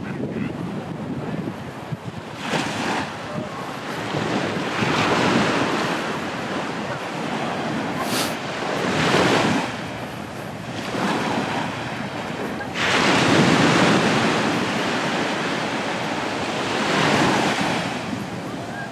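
Sea waves breaking and washing up on a sandy beach, surging about five times in the stretch, the loudest wash about two-thirds of the way through, with wind buffeting the microphone.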